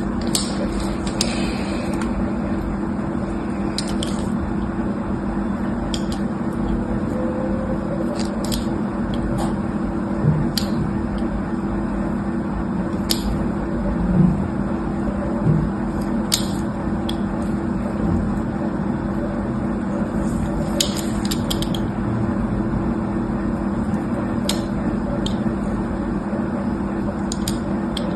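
Slime being handled, with scattered short clicks and squishes over a steady hiss and low hum.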